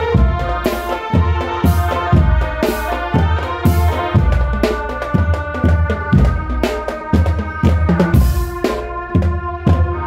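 Loud music with a drum kit: a steady, heavy bass-drum beat and cymbal crashes about once a second, under sustained melodic instruments.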